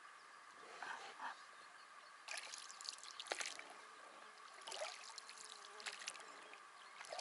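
Oars of an inflatable packraft dipping into calm river water as it is rowed: faint splashes and trickling drips, a stroke about every second from about two seconds in.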